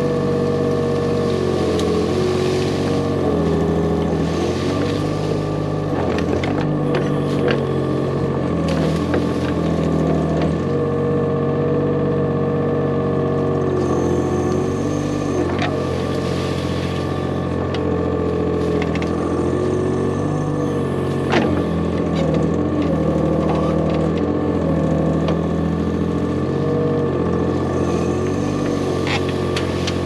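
Kubota KX41-3V mini excavator's three-cylinder diesel engine running steadily, its note dipping and recovering as the hydraulics take load while the arm digs and swings. A few sharp knocks stand out over it.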